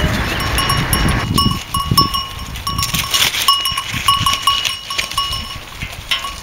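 Small livestock bell clinking in quick, irregular strokes as sheep feed at a fence, with soft rustling close by. A steady rush of road noise stops about a second in.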